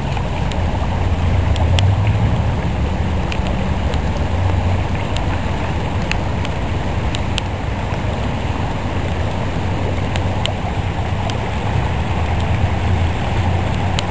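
River water rushing steadily with a deep rumble, and scattered sharp ticks of raindrops.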